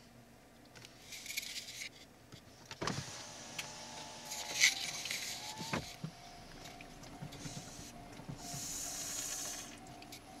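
A car's electric power window running for about three seconds, a clunk as it starts and another as it stops, with a faintly rising motor whine in between. A steady tone carries on afterwards, with brief bursts of hiss.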